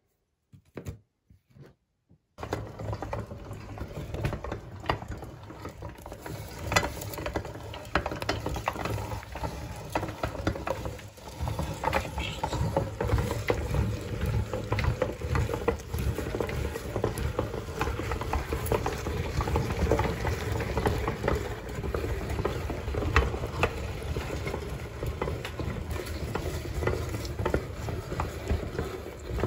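Hand-cranked metal meat grinder churning frozen ice cream bars through its auger and perforated plate: a steady grinding noise full of small crackles and clicks. It starts a couple of seconds in, after a few short clicks.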